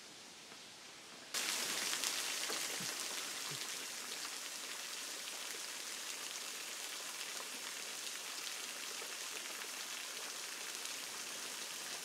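Water trickling and dripping: a steady, fine hiss of many drops and thin streams, starting abruptly about a second in.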